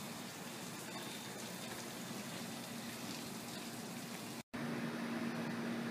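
Steady background hiss with a low steady hum. The sound cuts out for an instant about four and a half seconds in, and the hum is a little louder after the break.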